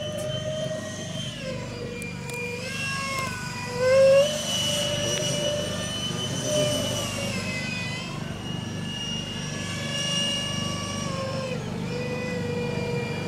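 Electric ducted-fan whine from a radio-controlled Freewing Eurofighter foam jet flying aerobatics. The pitch rises and falls as the throttle changes. It surges loudest about four seconds in, with a quick upward sweep.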